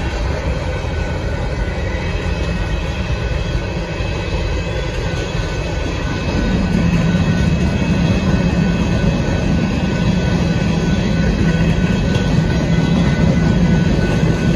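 Loaded covered hopper cars of a Union Pacific freight train rolling past at a crossing: a steady rumble of steel wheels on the rails, with faint steady high tones above it. About six seconds in the rumble grows deeper and a little louder.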